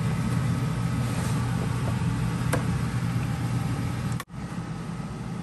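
Steady hum of a kitchen fan, with a faint click of a utensil on the foil pan about two and a half seconds in. Near the end the sound cuts out for an instant and comes back quieter.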